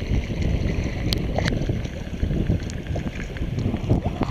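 Wind buffeting the microphone in an irregular low rumble, with a few faint knocks.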